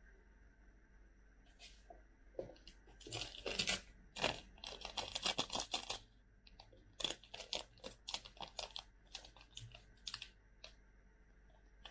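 Plastic seasoning sachets for cup ramen being torn open and crinkled by hand. The rustling and crackling come in two spells, the first starting about two seconds in and the second from about seven seconds until shortly before the end.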